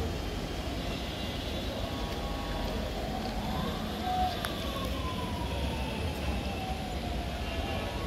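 Busy city ambience with a steady low rumble. A single siren-like tone rises about three seconds in, then slowly falls in pitch until about seven seconds in. A brief click comes at about four and a half seconds.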